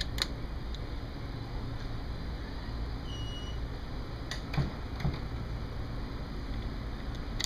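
A few light clicks and taps as hands fit the plastic module of a 2N Helios IP door station into its mount, over a steady low rumble. A short high beep about three seconds in.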